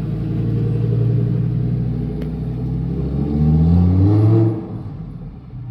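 Lamborghini Huracán Performante's naturally aspirated V10 running steadily, then accelerating hard with its pitch climbing from about three seconds in. The engine sound falls away quickly after about four and a half seconds.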